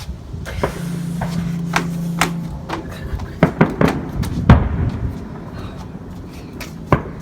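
Fireworks going off: a string of sharp bangs and cracks, thickest and loudest about four seconds in, with a lone bang near the end.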